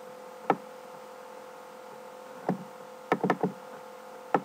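Computer mouse clicking through folders: one click about half a second in, another at about two and a half seconds, a quick run of three just after three seconds, and one near the end. A steady faint electrical hum runs underneath.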